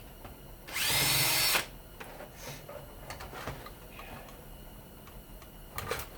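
Power drill run in one short burst of about a second, its whine rising as it spins up, driving out a screw from a fan housing being dismantled. A few light clicks of handling near the end.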